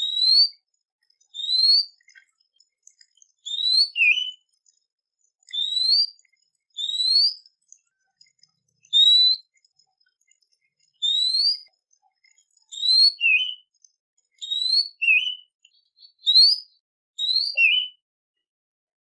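A songbird repeating a clear whistle that rises in pitch, about a dozen times at one- to two-second intervals. Several of the whistles are followed by a short, lower note.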